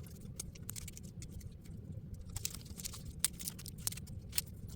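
Irregular small clicks, ticks and light rustles from hands working a model horse's costume and its plastic wrapping, with a steady low hum underneath.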